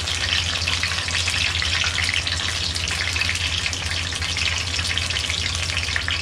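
Battered onion rings deep-frying in oil: a steady, dense crackling sizzle, over a steady low hum.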